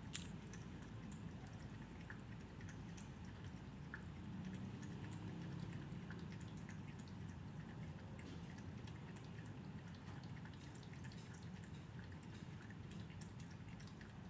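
A cat lapping water from a bowl: faint, irregular wet ticks over a low hum.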